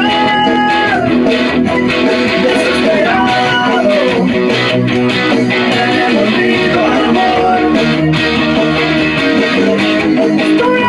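Guitar music: a lead melody of held notes that slide from one pitch to the next over strummed chords, playing steadily and loud.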